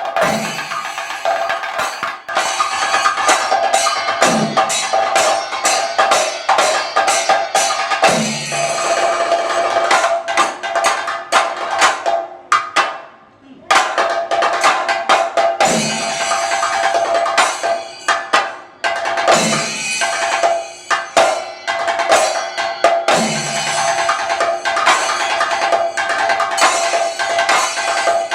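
Thayambaka ensemble of chenda drums beaten with sticks in fast, dense strokes, with cymbals ringing steadily over them and deep strokes every three to four seconds. About twelve seconds in the playing briefly drops away, then starts again at full strength.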